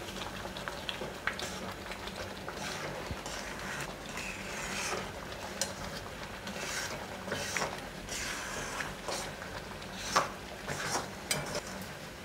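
Steel spoon stirring thick semolina halwa in a steel kadai on the flame, with irregular scrapes and clinks against the pan as the mixture thickens. A few sharper clinks come about ten seconds in.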